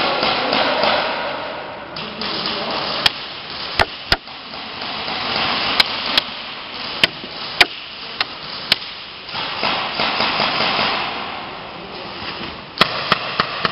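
Airsoft guns firing single shots: about a dozen separate sharp cracks, some in quick pairs, over a rushing background noise that swells and fades.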